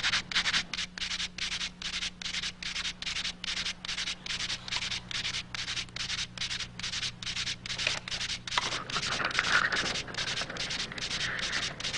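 A rhythmic swishing noise, evenly repeated about four strokes a second, over a low steady hum.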